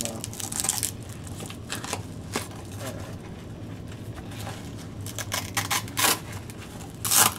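Plastic packaging crinkling and rustling as hands rummage through a box of accessories, in irregular bursts, the loudest one near the end.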